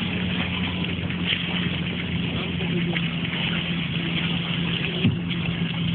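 A fishing boat's engine running steadily under a wash of wind and water noise, with one brief knock about five seconds in.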